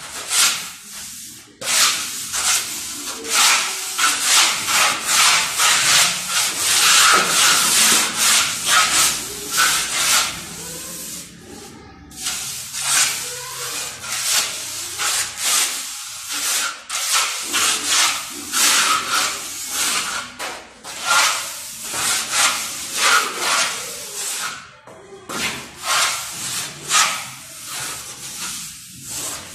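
Wooden hand float rubbing over a freshly laid cement plaster floor in quick back-and-forth strokes, with a few short pauses. The float is smoothing the floor ready for porcelain tile.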